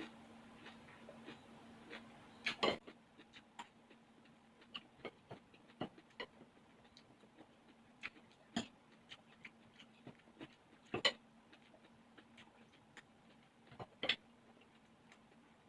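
Eating sounds: cutlery clicking and clinking against a plate, irregular soft clicks with four louder clinks.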